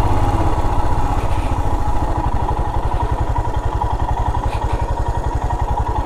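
Royal Enfield Himalayan's single-cylinder engine running at steady low revs, with an even, rapid thump, as the motorcycle creeps down a steep, slippery dirt track.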